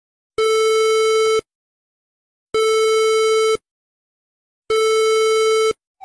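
Emergency-alert broadcast alarm tone: three one-second beeps of a steady, buzzy low tone, about two seconds apart.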